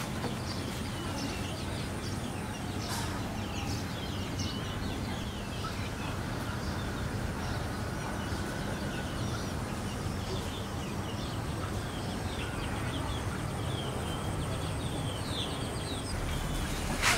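Outdoor ambience: birds chirping again and again over a steady low hum.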